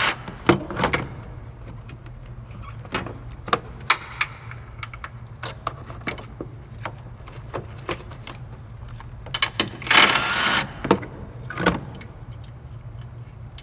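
Metal tool clinks and scrapes of a wrench working on the car battery's negative terminal to take off the cable, with a louder rasping stretch about ten seconds in, over a steady low hum.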